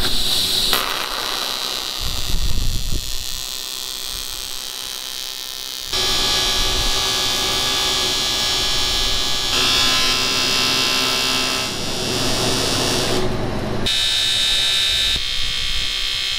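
TIG welding arc buzzing steadily, stopping and restarting several times and loudest from about six seconds in.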